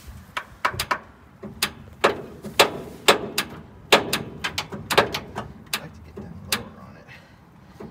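A quick, irregular run of sharp metal clanks and knocks, about twenty, some ringing briefly: tools working on metal.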